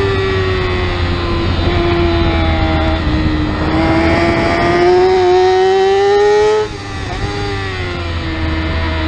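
Yamaha R6's inline-four engine at high revs, heard onboard over a steady rush of wind. The engine note climbs steadily for a few seconds, then the revs drop sharply about two-thirds of the way through and hold lower.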